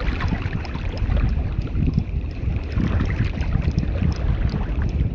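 Wind buffeting the microphone with a steady low rumble, over water lapping at the shore.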